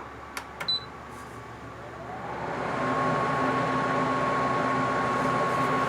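Haier 5,000 BTU window air conditioner switched on at high fan: a couple of clicks and a short beep, then the fan motor spins up with a rising whine and growing rush of air, settling about three seconds in to a steady run.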